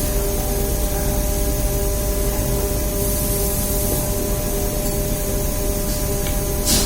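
Machinery running steadily with a low rumble and a constant hum, broken by a few short hisses, one about three seconds in and a sharper one near the end.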